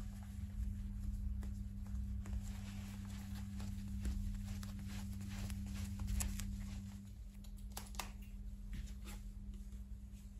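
Hands pressing and rubbing a sheet of suede against a rubber shoe sole, heard as faint scattered rustles and light clicks over a steady low hum.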